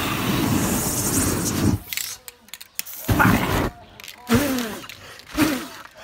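Flames from lit spray paint whooshing across a painting for about two seconds, stopping abruptly, then a second shorter whoosh about three seconds in.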